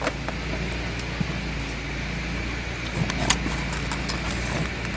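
Scattered light clicks and taps of pistol crossbow parts being handled and fitted together, the sharpest about three seconds in, over a steady background hum.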